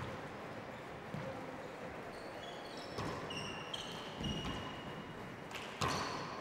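Handball rally: the small rubber ball slapped by hand and smacking off the wall and floor, about four hits with the loudest near the end, with sneakers squeaking on the hardwood court floor in the middle of the rally.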